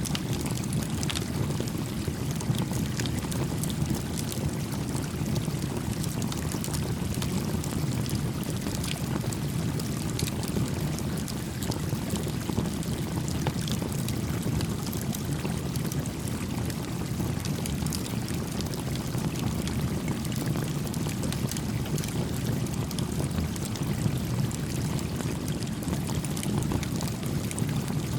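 A creek flowing with a steady, even rush of water. Over it come scattered, faint sharp crackles from a small campfire.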